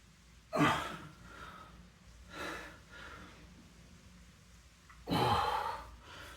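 A man breathing hard from exertion. There are two loud, forceful exhales about four and a half seconds apart, with a softer breath between them.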